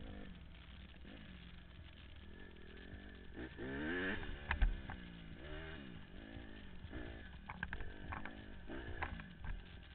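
Honda CRF150R dirt bike's single-cylinder four-stroke engine revving up and down under the rider's throttle, with the loudest rise in pitch about four seconds in. A few sharp knocks are mixed in.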